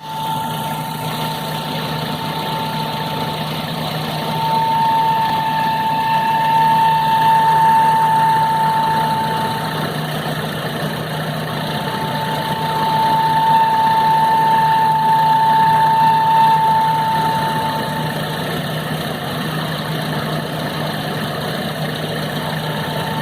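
2005 Nissan Urvan engine idling with a steady high-pitched whine over the engine drone; the whine swells louder twice and fades back. This is the unidentified noise the owner says disappears when the engine is accelerated.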